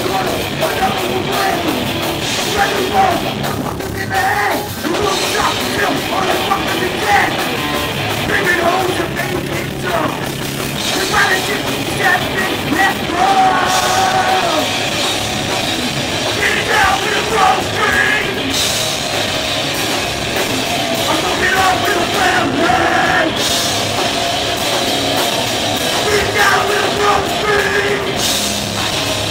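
Hardcore band playing live: distorted electric guitars, bass guitar and drum kit, loud and unbroken throughout.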